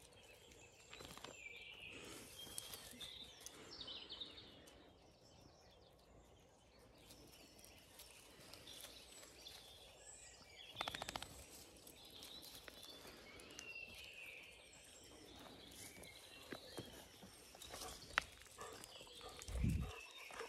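Faint outdoor ambience of birds chirping and singing, with occasional footsteps crunching on gravel. There is a low thud near the end.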